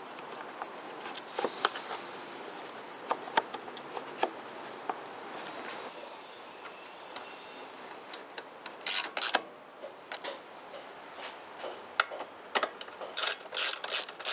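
Hand tools and parts clicking and knocking at irregular intervals while a rototiller's plastic fuel tank trim panel is fitted back on. There are quick runs of clicks about nine seconds in and again near the end.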